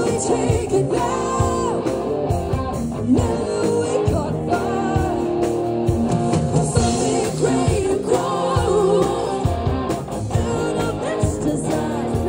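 Live rock band playing: a woman singing lead with a wavering vibrato over electric guitars and a drum kit.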